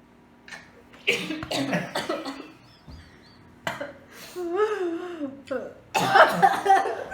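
A person coughing and gagging in rough bursts, with a wavering groan in between, as a reaction to a foul-tasting jelly bean in the mouth.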